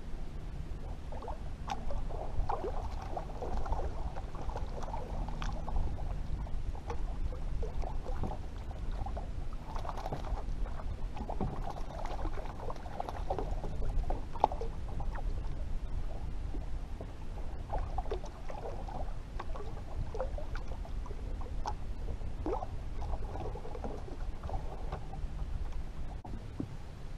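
Choppy water lapping and slapping against the hull of a small Gheenoe skiff, with irregular splashy knocks and gurgles over a steady low rumble.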